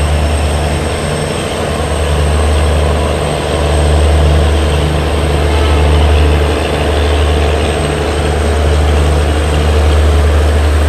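Heavy railway diesel engine running beside a standing passenger train: a loud, steady deep hum with a low throb that pulses a little faster than once a second, under a steady rushing noise and a thin high whine.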